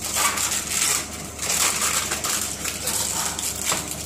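Aluminium foil being crumpled and crinkled by gloved hands, an irregular crackling rustle.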